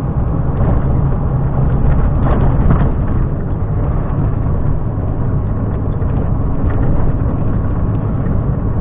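Volvo FM 370 truck driving at a steady pace on the highway: a steady low diesel engine drone mixed with tyre and road noise.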